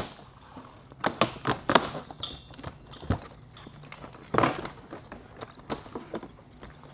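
Irregular light knocks and plastic clatter as a KTM dirt bike's plastic fuel tank, with its radiator shrouds attached, is lifted off the frame, the plastic bumping and rubbing against the bike.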